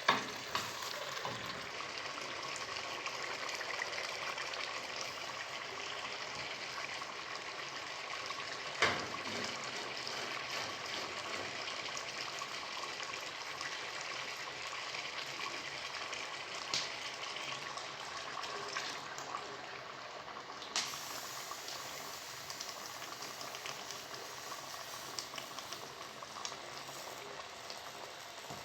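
Chicken curry cooking in a pan, a steady sizzling, bubbling hiss, with a few sharp knocks, one near the start, one about nine seconds in and one about twenty-one seconds in.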